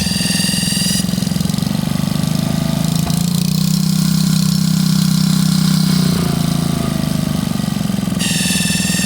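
Lifan 79cc single-cylinder four-stroke engine running at low speed with a high-pitched whine over its firing. The whine drops out about a second in as the engine gets a little louder, then comes back near the end. It is an unexplained noise that has been there since the engine's first start and occurs only from idle up to about a third of throttle.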